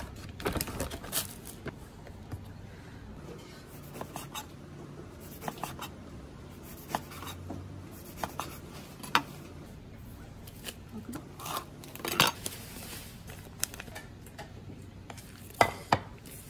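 Chef's knife cutting through a loaf of bread on a wooden cutting board: crisp cuts and knocks of the blade on the board at irregular moments, the loudest in the second half.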